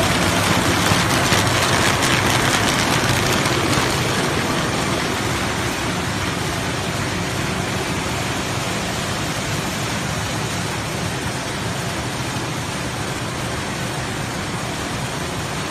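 RZFD-330 square-bottom paper bag machine running: a steady, dense mechanical clatter and whir from its rollers and folding gear. It is a little louder and more rattly for the first few seconds, then evens out and eases slightly.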